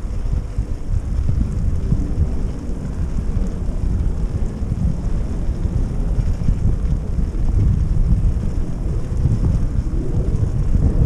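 Wind buffeting the microphone of a bicycle-mounted camera while riding, a steady, loud low rumble that keeps fluctuating.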